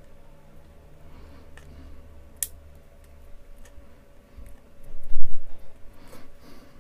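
Handling of a thin aluminium plate and small hand tools on a workbench: a few sharp clicks, one of them bright and distinct about two and a half seconds in. A louder patch of low knocking and rubbing comes about five seconds in.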